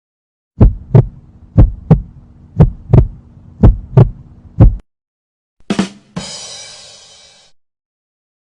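Heartbeat sound effect: paired lub-dub thumps about once a second, nine thumps in all, over a low steady hum. About a second after it stops, a short hit is followed by a ringing, noisy sound that fades out over about a second and a half.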